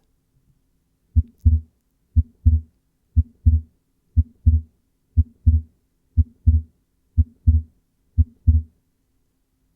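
Heart sounds with fixed splitting of the second heart sound (S2): eight low-pitched beats about one a second, each a short first sound followed by a split second sound, its aortic and pulmonary components a fixed time apart. This is the splitting pattern whose prime example is an atrial septal defect.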